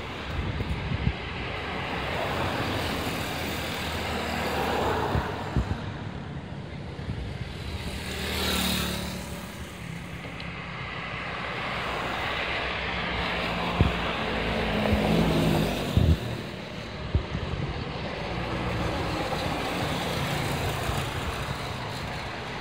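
Road traffic passing: cars, vans and motorcycles going by one after another, each swelling and fading over a steady rumble, the closest and loudest pass-by a little over a third of the way in. A few short sharp thumps come through between the pass-bys.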